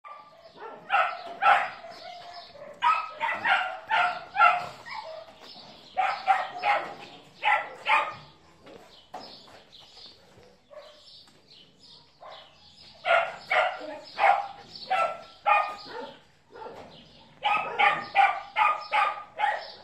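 Dog barking: about five bursts of quick, sharp barks, several barks to a burst, with pauses between them.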